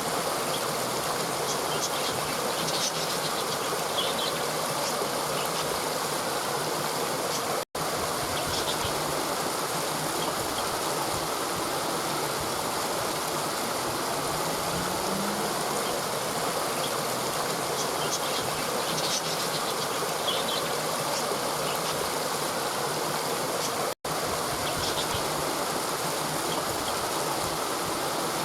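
Steady rush of river water flowing over rocks, with faint high bird chirps now and then. The sound cuts out for an instant twice.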